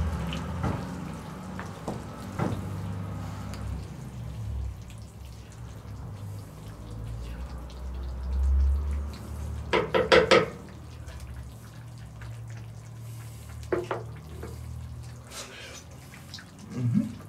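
Stew simmering and bubbling in an uncovered cast-iron Dutch oven, with a few clicks of a wooden spoon against the pot early on as it is stirred. A short, loud pitched sound cuts in about ten seconds in, and a smaller one near fourteen seconds.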